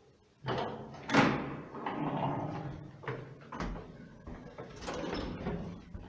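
A lift's hinged landing door being pulled open by its handle and swung shut, with clanks and knocks. The sharpest bang comes about a second in, and a few more knocks follow later.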